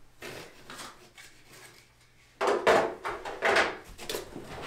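Cardboard packaging being handled: several scraping, rustling swishes of cardboard inserts and flaps sliding in a shipping box, louder in the second half.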